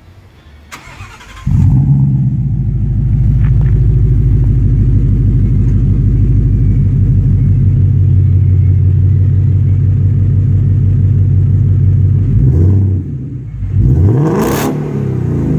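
2017 Ford Mustang GT's 5.0 Coyote V8 through a Magnaflow Competition Series cat-back exhaust: it cranks and fires about a second and a half in, then settles into a steady idle with a throaty growl. Near the end it is revved twice, the second rev higher, and drops back to idle.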